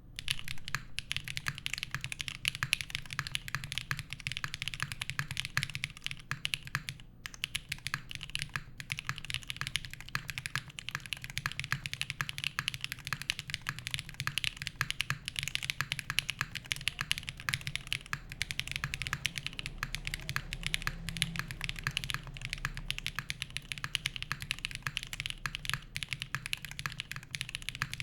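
Fast, continuous typing on a SINGAKBD Unikorn R2.2 mechanical keyboard, O-ring gasket mounted, with lubed Geon Black switches, an aluminium plate and GMK keycaps. The keystrokes come as dense clicks and clacks with a brief pause about seven seconds in.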